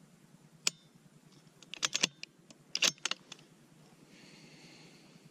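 A single sharp click of a Ruger Precision Rifle being dry-fired, followed about a second later by two quick runs of mechanical clicks from working the rifle, about a second apart.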